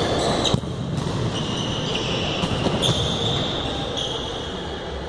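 Futsal ball being kicked on an indoor court, with a sharp kick or ball impact about half a second in. Players' shoes squeak briefly and high on the court floor several times, all in a large hall.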